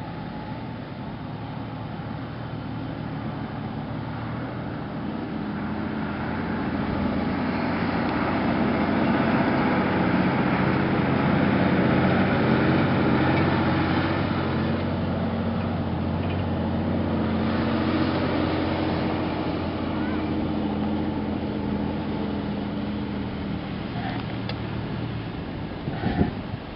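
Land Rover LR4's engine running steadily under light load as the SUV crawls over dirt mounds, growing louder through the middle. A few knocks sound near the end.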